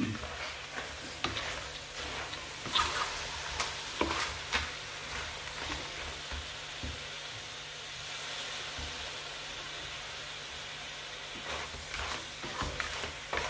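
Food sizzling in hot oil in a pan, with a spoon stirring and clicking against the pan now and then.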